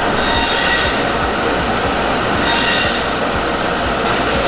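Poultry processing machinery running loudly, a dense mechanical clatter with a high squeal that swells at the start and again about two and a half seconds in.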